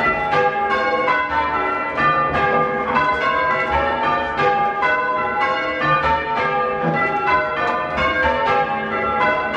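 Ring of six church bells, tenor 8-3-22 cwt tuned to G, being rung full-circle in change ringing: a steady, even run of overlapping bell strikes, a few a second. Heard from the ringing room below the bells.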